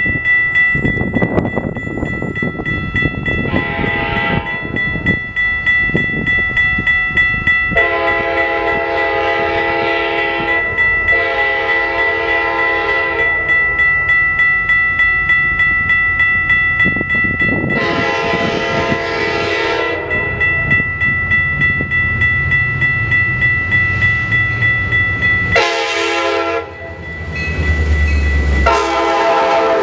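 Metra diesel locomotive approaching and passing, sounding its air horn in several blasts, including two long ones about a third of the way in, over a bell ringing steadily. Near the end the locomotive's low engine rumble swells as it goes by.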